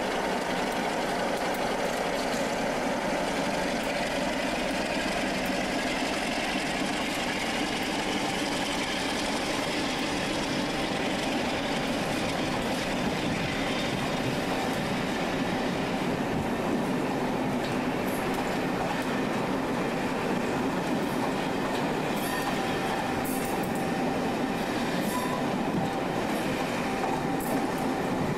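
A Class 47 diesel locomotive's Sulzer engine works as it hauls a passenger train away, and its coaches rumble past on the rails. In the second half there are sharp clicks and some wheel squeal from the passing coach wheels.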